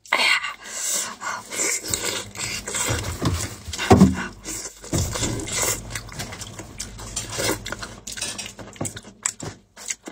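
Close-miked eating sounds: wet chewing, lip smacking and slurping, with the squelch of plastic-gloved hands tearing saucy meat apart. The sounds come in uneven bursts, the loudest about four seconds in.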